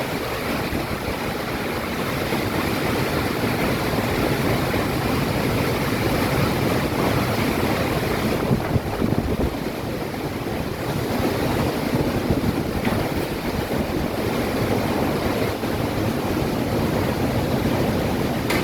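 Steady rushing noise of wind and rain, with wind buffeting the microphone and a couple of brief louder gusts partway through.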